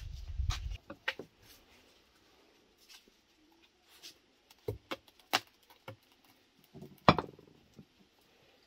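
Scattered light clicks and taps from hands and a small clay spice pot over a wooden cutting board of minced meat being seasoned, the sharpest about five and seven seconds in. A low rumble at the start stops about a second in.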